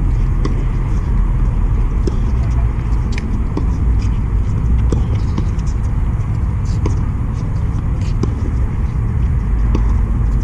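Tennis balls being struck with rackets on outdoor hard courts: scattered sharp pops at irregular intervals over a steady low rumble.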